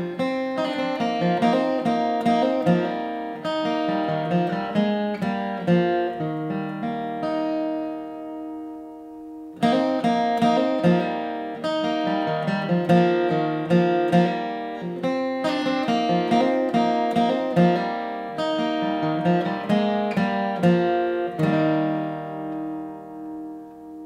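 Acoustic guitar played solo, a run of picked notes and chords. A chord is left to ring and fade about eight seconds in, playing resumes near ten seconds, and it ends on a chord ringing down.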